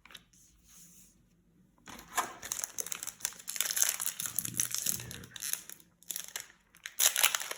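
Plastic wrapper of a trading-card booster pack crinkling and tearing as it is handled and opened, in irregular bursts starting about two seconds in, with the loudest crinkling near the end.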